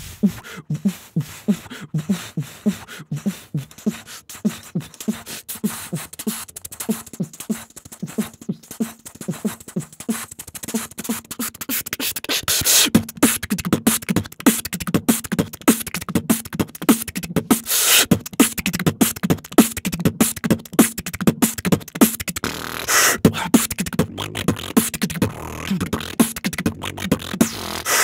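Beatboxing: a steady rhythm of low kick-like thumps and quick clicks that gets louder and busier about twelve seconds in. Three long hisses come about five seconds apart in the second half.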